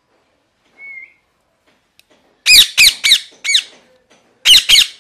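Rose-ringed (ringneck) parakeet calling: a faint short whistle about a second in, then a quick run of four loud, shrill screeches, and two more near the end.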